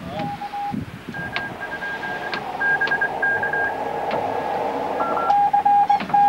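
Morse code from an amateur radio receiver: single beeping tones keyed on and off in dots and dashes over band hiss, several stations at different pitches, with a strong one starting about five seconds in.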